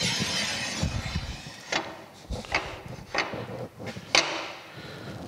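A short scraping at the start, then about half a dozen sharp metal clicks and clunks of steel parts and hand tools being handled on a metal planer's cast-iron saddle, the loudest about four seconds in.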